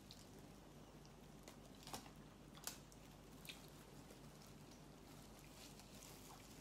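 Faint eating sounds: chewing and a few soft clicks as roast chicken is pulled apart with plastic-gloved fingers, the sharpest clicks about two seconds and nearly three seconds in.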